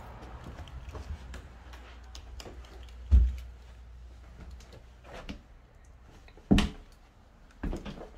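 Thumps and knocks as a person walks through small, bare rooms: a heavy low thump about three seconds in, then two sharper knocks near the end.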